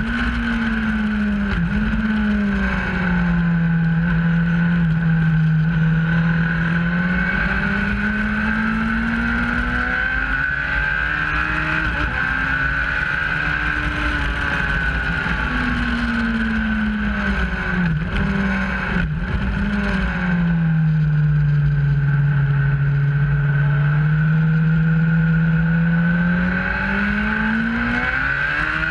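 A motorcycle engine running at track speed, its pitch sinking slowly over several seconds and climbing again, twice, with a steady high whine and rushing wind over it.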